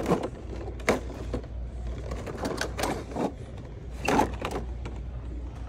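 Plastic blister packs of Monster Jam toy trucks clacking and rustling as hands flip through them on metal peg hooks: a few separate clicks and scrapes, the loudest about four seconds in, over a low steady hum.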